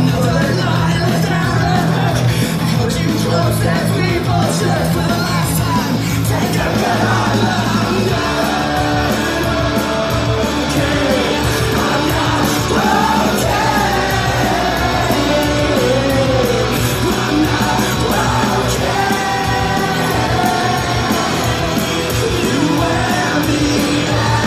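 Loud music over a club PA with a vocalist yelling and singing over it, a steady bass line underneath.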